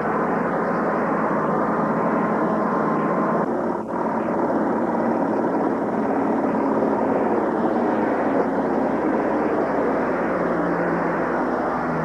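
Four-engine turboprop patrol aircraft, a US Navy P-3 Orion, flying low overhead: a steady, loud engine drone whose tones shift as it passes, one sliding down in pitch near the end. The sound dips briefly about four seconds in.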